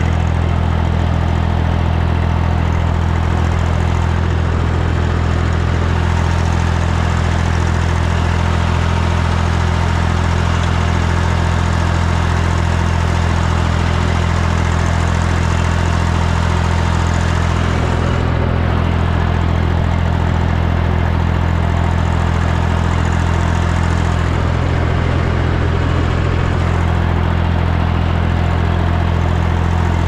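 Ursus C-360 3P tractor's four-cylinder diesel engine running at a steady, unchanging engine speed as the tractor drives across the field, a low, even drone.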